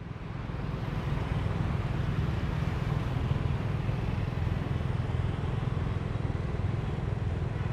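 Steady hum of motor traffic on a busy street, swelling a little over the first second and then holding steady.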